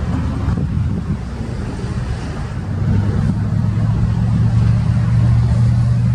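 Diesel locomotive of a freight train running with a steady low drone that grows louder about three seconds in, with wind buffeting the microphone.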